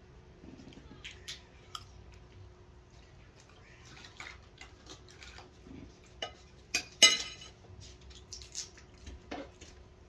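Fork and spoon clicking and scraping against a dinner plate while eating. A couple of sharp, ringing clinks come close together about seven seconds in.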